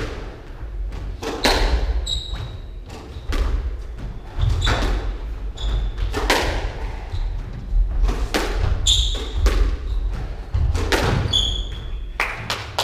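Squash rally: a hard rubber squash ball is struck by rackets and hits the court walls, making sharp thuds about once a second that echo around the court. Between the hits, short high squeaks of court shoes on the wooden floor.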